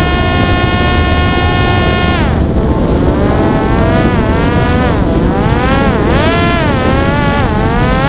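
Parrot Disco's electric propeller motor whining at high speed over a rush of wind noise. About two seconds in the pitch drops as the throttle comes back, then swings down and up several times, and it rises back to a high steady whine near the end.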